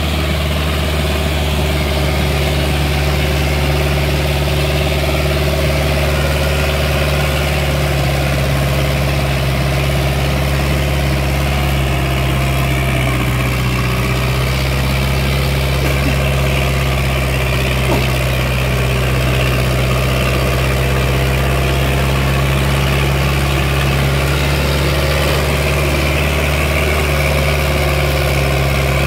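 Sonalika 750 tractor's diesel engine running steadily under heavy load, dragging a 22-disc harrow through the soil. The deep, even engine note holds without revving up or down.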